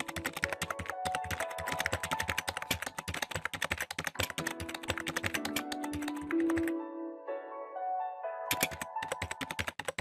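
Rapid keyboard-typing sound effect, a fast run of clicks that stops about two-thirds of the way through and starts again briefly near the end, over light melodic background music.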